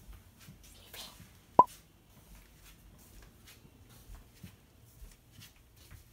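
Quiet small room with faint, scattered soft clicks and steps as a person walks, and one short, sharp high blip about one and a half seconds in.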